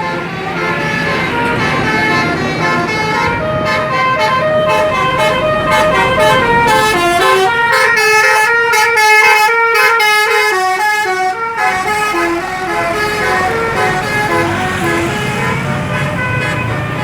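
Bus's basuri 'telolet' musical horn playing a tune of quick stepped notes, fastest and loudest around the middle, over a low rumble.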